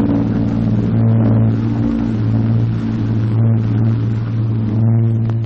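Steady, loud drone of twin piston aircraft engines in flight, a deep even hum with a beat in it.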